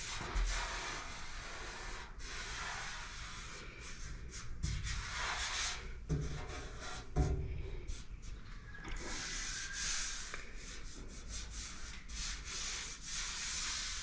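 Rubbing back and forth across the sheet-steel panel of a 1959 Chevrolet step-side truck bed while checking it for dents: a scratchy sound in irregular strokes, with low thumps about five and seven seconds in.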